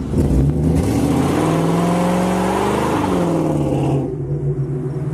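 Ford Mustang GT V8 engine revving up, its pitch climbing for about two seconds, then dropping back and running on steadily.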